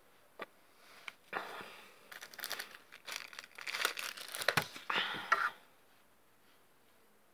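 White paper tissue being pulled, crumpled and torn, a run of irregular crinkling and ripping sounds from about a second in that grows louder and stops abruptly about two seconds before the end.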